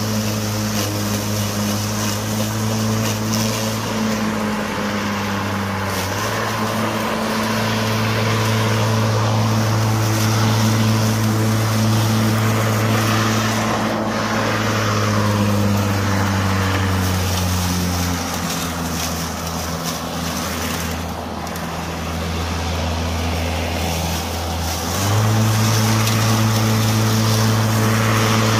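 Makita 36V (18V X2) brushless cordless lawn mower running with a steady motor-and-blade whine. Its pitch sags gradually through the middle and jumps back up a few seconds before the end.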